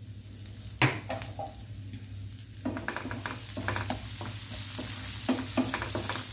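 Crushed garlic, mustard seeds and cumin sizzling in hot oil in a non-stick frying pan, the tempering for a rasam paste. A single sharp knock about a second in, then from about two and a half seconds in a wooden spatula stirring and scraping against the pan in quick strokes.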